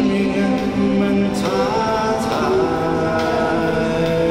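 A man singing karaoke with backing music through a YS-10 Bluetooth karaoke microphone with built-in speaker, holding long notes with a slide in pitch about a second and a half in.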